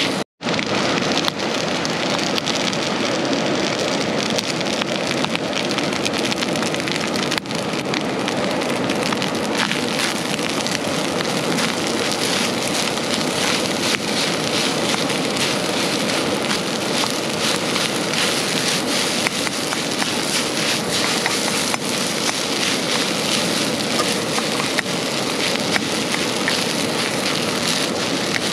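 Heavy rain falling steadily, a dense even hiss that cuts out for an instant just after the start.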